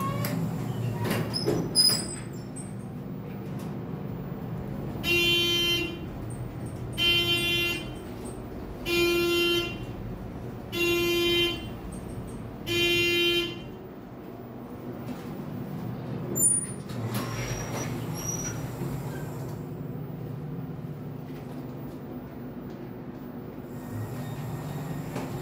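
Elevator car running with a low steady hum, and an electronic beep tone sounding five times, each under a second long and about two seconds apart. A sharp click about two seconds in and another later.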